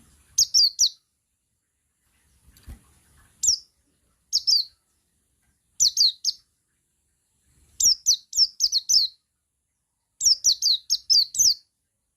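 Male buxtoni white-eye (pleci) singing in short bursts of rapid, high, downward-sweeping chirps, a single note at first, then longer runs of five or six notes near the end.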